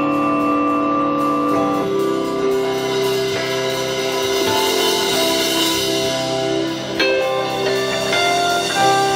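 Live instrumental rock: a sustained electric guitar melody over a drum kit, with a cymbal crash about seven seconds in.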